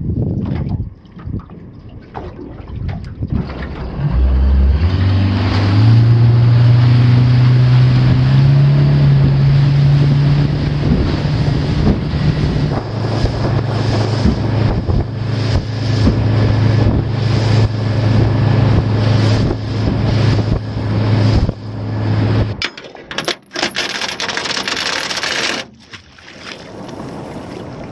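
50 hp outboard motor running a small aluminium boat, rising in pitch over the first few seconds as it gets under way and then running steadily with wind and water rush. It cuts off suddenly about 23 seconds in, and water splashes near the end.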